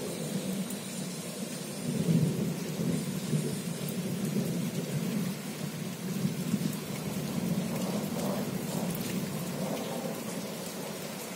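Thunder from a night thunderstorm rumbling on, swelling about two seconds in, over steady rain.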